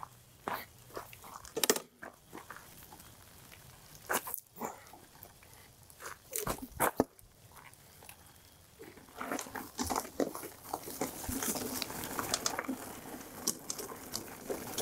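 Scattered crunches and clicks of footsteps and handling on a gravel trail covered in dry leaves. From about nine seconds in, the e-mountain bike's tyres roll over the gravel and leaves, a dense crackle that grows louder as the bike picks up speed.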